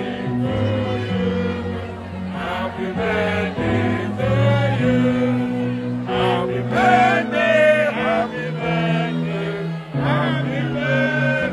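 Music with singing, the voices carried over a line of held bass notes.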